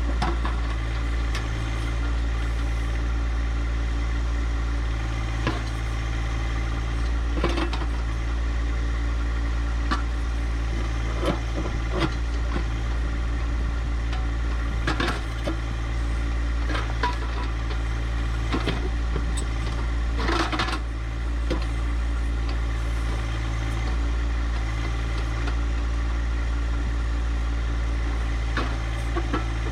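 John Deere 1025R compact tractor's diesel engine running steadily, with scattered short knocks and clatters over it, the most marked about two-thirds of the way through.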